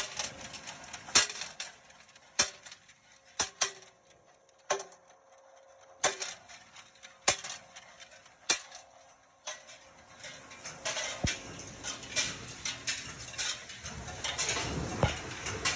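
Bolt-forming machine cycling: sharp metallic clacks about once every 1.2 seconds as each piece is cut from the wire and formed. From about ten seconds in the metal clatter becomes busier and denser.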